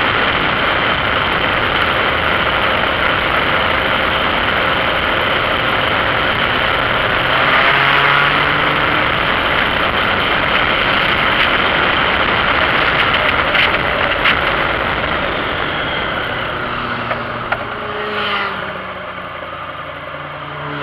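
Wind noise buffeting a motorcycle-mounted camera at riding speed, with the motorcycle's engine running underneath. Over the last few seconds the wind eases as the bike slows and the engine note shifts in pitch.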